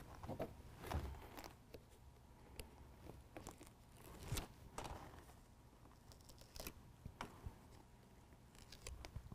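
Quiet crackle and rustle of release-paper backing being peeled off adhesive hook-and-loop (Velcro) strips, with scattered short clicks and taps as the strips and liner are handled and pressed into place.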